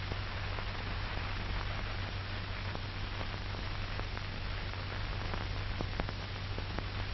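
Worn 1940s film soundtrack between narration: a steady hiss over a low hum, with scattered faint clicks and crackles.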